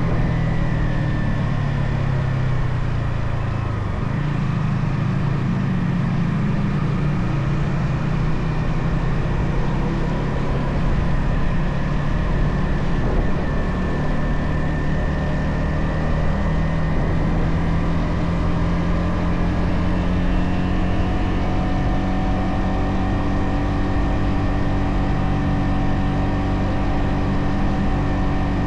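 Stock-exhaust Yamaha XSR 155 single-cylinder engine running under way. The engine note dips about four seconds in, then holds a steady cruise.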